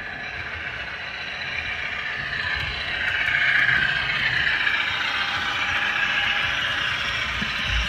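HO scale model train running past on the layout: the whir of locomotive motors and gears with the clatter of wheels on the track. It grows louder as the train approaches, is loudest about halfway through, then stays steady.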